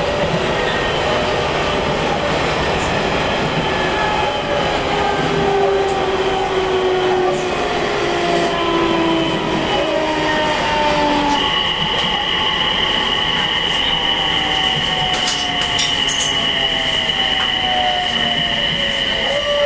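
Onboard running sound of a JR East E721-500 electric multiple unit with Mitsubishi IGBT-VVVF traction control, slowing for a station stop: the whine of the motors and inverter falls steadily in pitch over the rumble of the wheels on the rails. About halfway through, a steady high tone sets in and holds.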